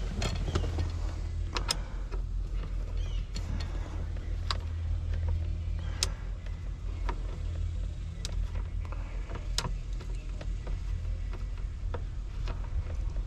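Scattered sharp metal clicks and taps, about one a second, as the shifter's mounting bolts are turned in with an Allen wrench and snugged only enough to hold. A steady low hum runs underneath.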